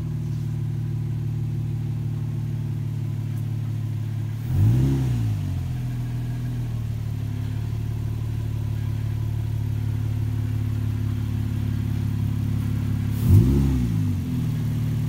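Infiniti G35-based Vaydor kit car's V6 engine idling steadily, with two short blips of the throttle, one about four and a half seconds in and another about thirteen seconds in.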